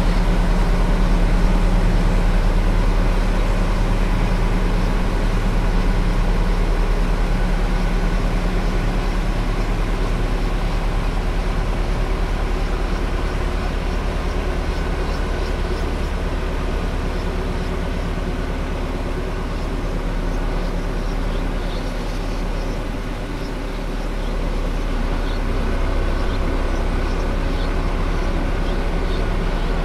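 A heavy vehicle engine running steadily, a low even drone with no change in speed.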